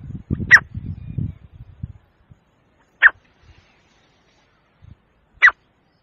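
Male grey francolin (teetar) calling: three short, sharp calls about two and a half seconds apart, the first the loudest.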